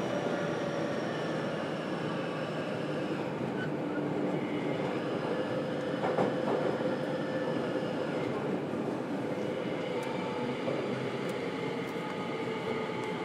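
JR Kyushu 303 series electric train heard from inside a motor car: a Hitachi IGBT VVVF inverter and traction motors whine in several thin tones over rumbling wheel and track noise. The tones drift slowly lower in pitch, with a brief knock about six seconds in and new tones coming in near the end.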